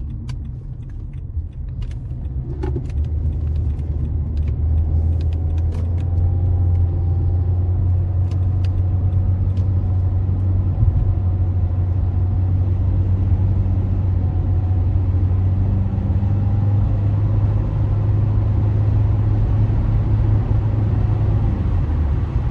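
Car engine and tyre rumble heard from inside the cabin, growing louder over the first several seconds as the car accelerates up a freeway on-ramp, then settling into a steady low drone at freeway speed.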